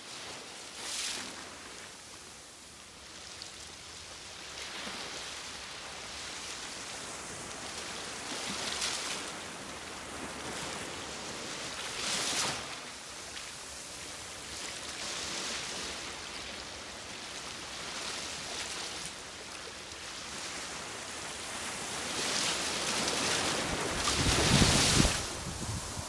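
Sea waves washing in: a steady hiss of surf that swells and falls every few seconds, loudest near the end.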